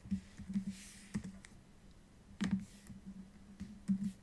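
A few sharp, scattered clicks, about six of them, loudest about two and a half seconds in, made while the cube's yellow and green faces are being turned.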